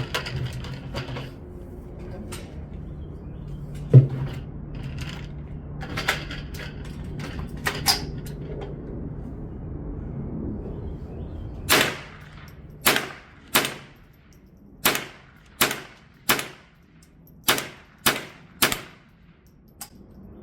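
.22LR gunshots at a steel-target course of fire: one sharp crack about four seconds in over a steady low hum, then, from just past halfway, a string of about ten shots roughly one every half second to second, each with a short ringing tail.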